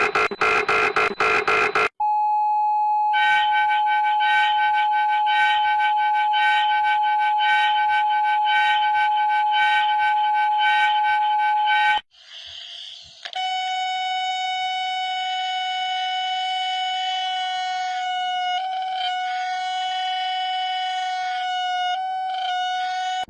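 Electronic emergency alert attention tones: a fast pulsing signal cuts off, then a steady tone with higher pulsing tones layered on it runs for about ten seconds. After a brief noisy break it gives way to a second steady chord of tones that dips a few times near the end.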